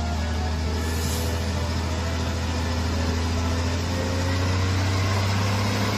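Diesel engine of a concrete mixer truck running as the truck drives through deep mud: a steady low drone.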